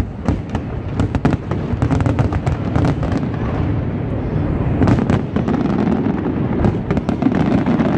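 Aerial fireworks bursting: a rapid run of booms and crackling pops over a steady low rumble, densest in the first three seconds, with further clusters of bursts about five and seven seconds in.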